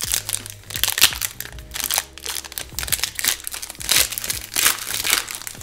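Plastic foil trading-card pack wrapper crinkling and rustling as it is handled, a dense run of sharp, irregular crackles.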